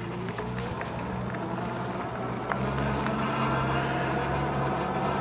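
Engwe Engine Pro 2.0 e-bike's 750-watt motor whining as it pulls away from a standstill on throttle only, its pitch climbing as the bike gathers speed. A low road and wind rumble grows louder about halfway through.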